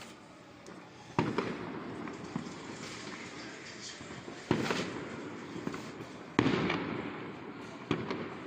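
Fireworks exploding: four loud bangs a few seconds apart, each trailing off in a rolling echo, the third the loudest, over a constant background of smaller crackles and pops.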